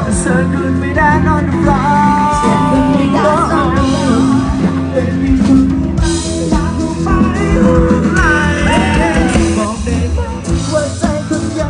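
Live band music: a singer's voice over a rock-style accompaniment with guitar.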